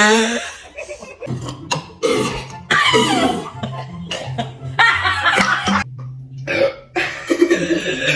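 A string of separate burps from people who have just chugged carbonated Sprite, over background music.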